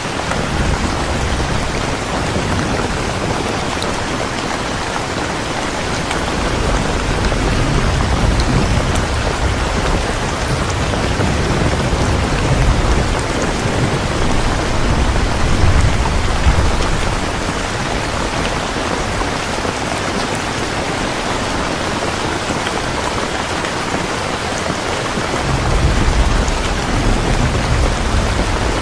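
Heavy rain falling steadily, with low rolling thunder swelling under it several times, loudest a little after the middle and again near the end.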